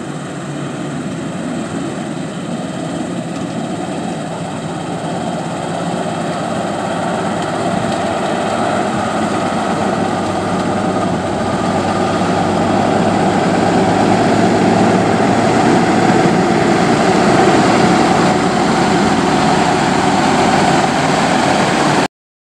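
Diesel engine of a vintage semi tractor running as the truck drives slowly across pavement, growing steadily louder as it comes closer.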